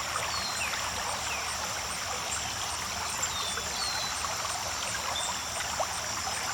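Creek water running steadily over rocks, with short high chirps from birds every second or so. A steady high-pitched hum pulsing about twice a second runs underneath.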